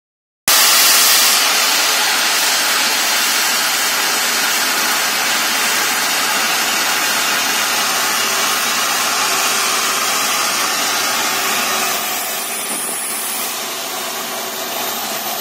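Truck-mounted borewell drilling rig running under load: a steady, loud rush of compressed air blasting water and rock slurry up out of the borehole around the drill rod, over the rig's machinery. It starts after a brief break in the sound and is slightly quieter for the last few seconds.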